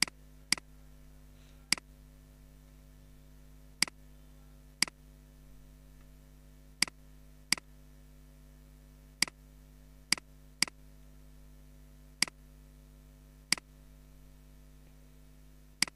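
Computer mouse button clicking about thirteen times at uneven intervals as objects are picked for a fillet, over a faint steady electrical hum.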